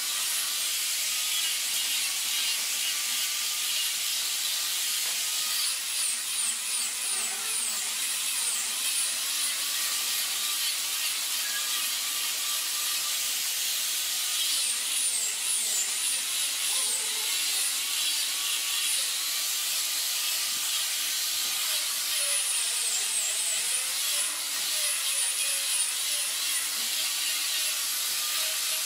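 Small electric angle grinder running continuously with its disc pressed against wood, grinding and smoothing the curved surface of a wooden stair volute: a steady high hiss of abrasion over a constant motor whine.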